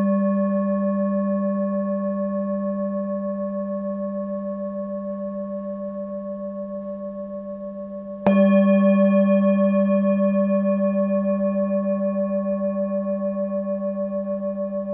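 A struck singing bowl ringing with a deep low tone and higher overtones, fading slowly with a steady pulsing waver. It is struck again about eight seconds in and rings out once more.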